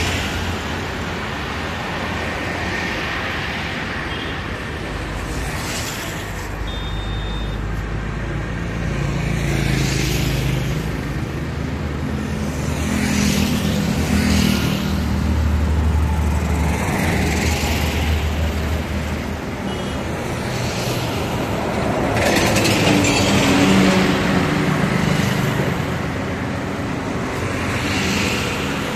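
Road traffic passing one vehicle after another (cars, motorcycles and trucks), each swelling and fading within a few seconds over a steady low engine rumble, with a brief high tone about seven seconds in.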